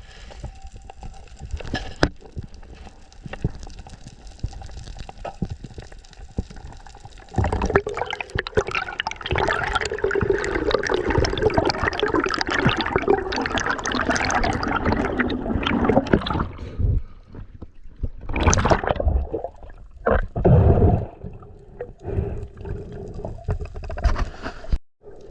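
Water rushing and gurgling around a camera worn while spearfishing. A long loud stretch of rushing, bubbling water comes about a third of the way in, followed by a few shorter gushes.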